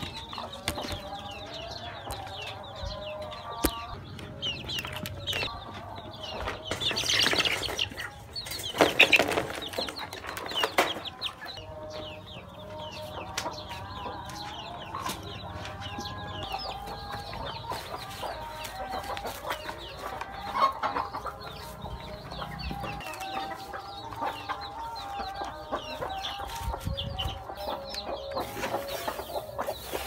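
Hens clucking steadily, with many short high peeps from chicks throughout. Two louder bursts of rustling noise come about seven and nine to eleven seconds in.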